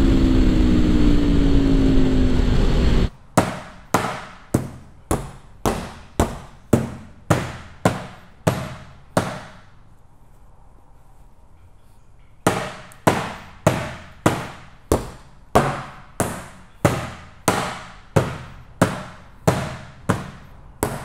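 Aprilia Tuono V4 Factory's V4 engine heard onboard with wind noise, revs easing down. About three seconds in it gives way to a hammer striking a motorcycle in sharp, evenly spaced blows about two a second, stopping for about three seconds midway before starting again.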